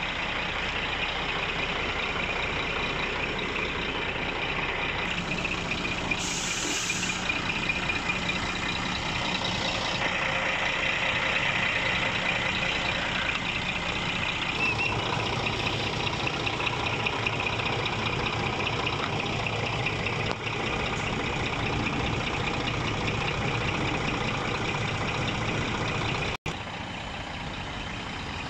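Scania R480 tractor unit's diesel engine idling steadily, with a short hiss of air about six seconds in.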